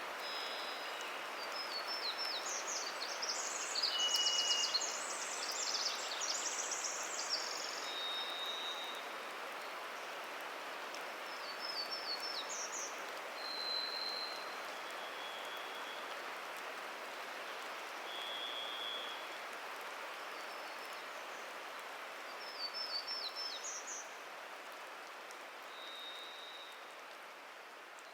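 Birdsong in a dripping forest. A Townsend's warbler sings short, buzzy phrases that climb in pitch, three times. A varied thrush gives single long whistled notes, each on a different pitch and spaced a few seconds apart. Under both runs a steady hiss of dripping rainwater, which fades a little near the end.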